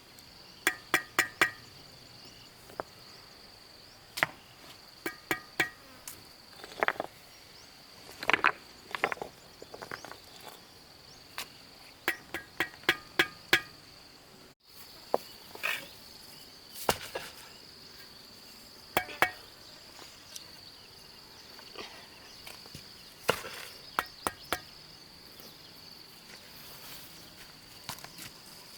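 Sharp knocks and clinks of stone being struck or set against stone, irregular, some in quick runs of three or four with a short ringing. A steady high insect drone runs underneath.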